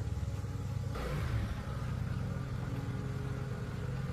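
An engine running steadily with a low, even note.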